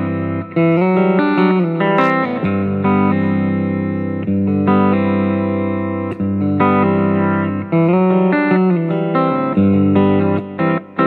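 Outro music: guitar chords that change every second or two.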